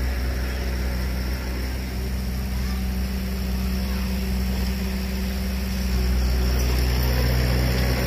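Heavy diesel engine of earthmoving machinery running steadily, getting a little louder about six seconds in.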